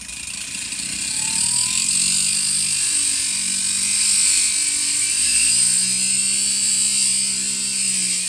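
Foredom-style flex-shaft rotary tool with an abrasive cutoff wheel grinding through a metal sling stud: a loud, steady high hiss of the wheel cutting metal over the motor's hum, which wavers in pitch as the load changes.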